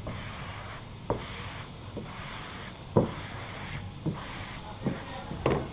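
Hands and a squeegee working vinyl graphics onto a car's body panel: soft rubbing swishes broken by about six light, irregular knocks and taps.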